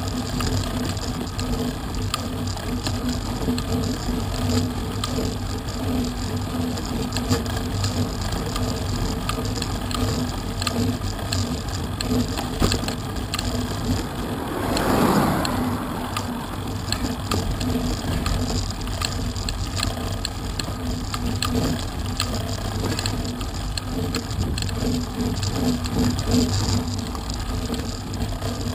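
Bicycle tyre rolling on coarse chip-seal tarmac, heard from a camera mounted low beside the front wheel, with steady road rumble and wind noise. About halfway through, a louder swell of noise rises and dies away over a second or so.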